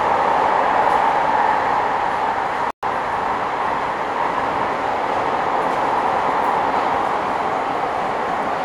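Bucharest Metro train running between stations, heard from inside the car: steady running noise from the wheels and motors in the tunnel. About a third of the way in there is a momentary dropout to silence.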